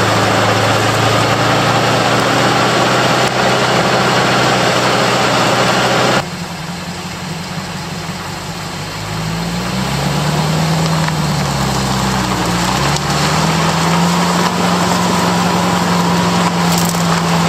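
Engine and drivetrain of a 1969 International Harvester Loadstar 1700 4x4 truck, heard from under the chassis as it rolls over dry leaves, with a steady low engine hum. About six seconds in the sound drops abruptly to a quieter idle. Around ten seconds in the engine note rises and falls as the truck pulls away, then settles into a steady run.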